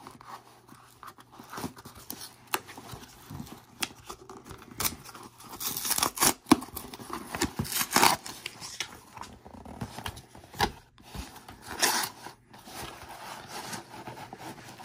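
Packing tape on a cardboard mailing box being cut and torn open by hand, in irregular short rasps, scrapes and clicks, with cardboard flaps rubbing as the box is worked open.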